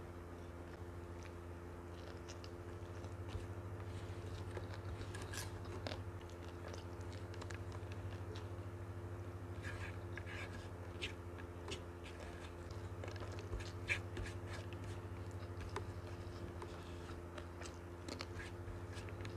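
Close-miked eating sounds of nasi lemak eaten by hand: fingers pressing and gathering rice on a banana leaf, and mouth chewing. Soft scattered clicks sit over a steady low hum.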